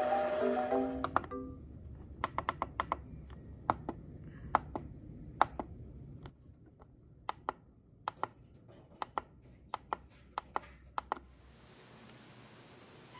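Irregular clicks of buttons being pressed on an Epson L5190 printer's control panel, over a low hum. They start as background music stops, about a second and a half in, and end shortly before the close, leaving a faint hiss.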